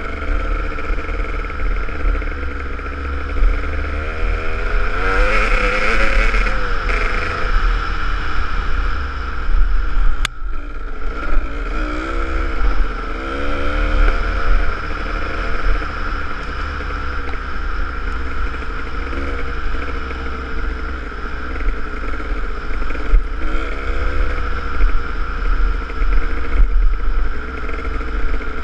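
Kawasaki KDX200's two-stroke single-cylinder engine running under way, revs rising and falling with the throttle, with a brief cut in the engine sound about ten seconds in.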